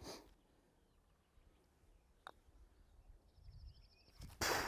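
Near quiet, broken about two seconds in by a single sharp click of a putter striking a golf ball. Near the end comes a louder burst of hissing noise.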